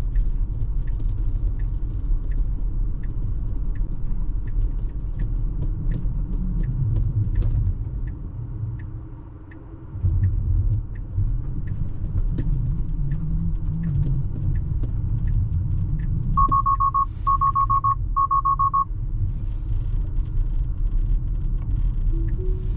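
Road and tyre rumble inside a Tesla's cabin, with a steady, regular ticking that fits the turn signal. Near the end come three short beeps in a row.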